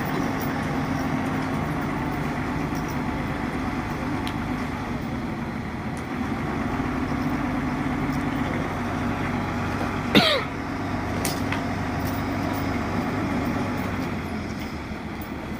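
Kato crane's diesel engine running steadily under load while loading wood. About ten seconds in comes a brief, sharp squeal that falls quickly in pitch.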